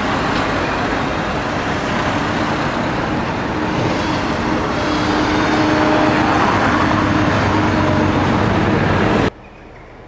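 Road traffic passing close by on a town street: cars and vans going by with engine hum and tyre noise, growing louder in the second half. It cuts off suddenly near the end to a much quieter outdoor background.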